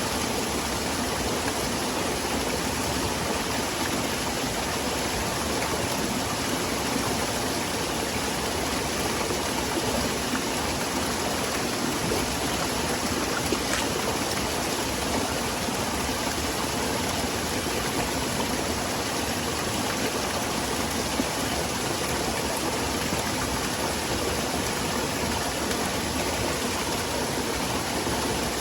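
Small waterfall splashing steadily into a forest stream, a constant rushing of water.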